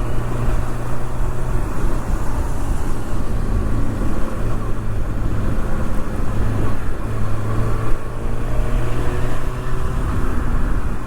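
Kawasaki ZX-6R's inline-four engine running steadily under the rider, mixed with road and traffic noise.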